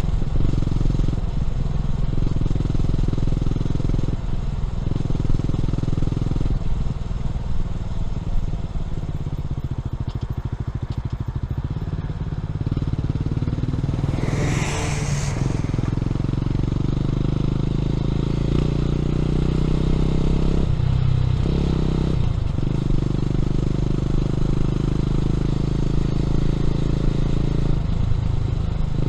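Honda CB400SS single-cylinder engine through a Yamamoto A-spec aftermarket exhaust, heard from the rider's seat while riding. Its note changes in steps several times and climbs steadily while accelerating past the middle. A brief rushing noise comes about halfway through.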